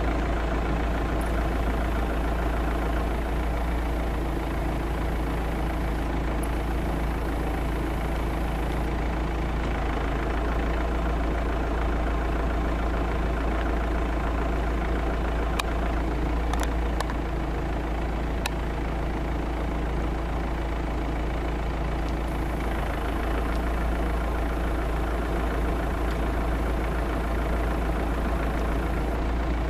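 A vehicle engine idling steadily with a low hum, with a few faint sharp clicks about halfway through.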